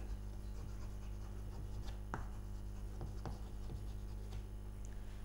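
Chalk writing on a chalkboard: a few faint taps and scratches, the clearest about two seconds in, over a steady low electrical hum.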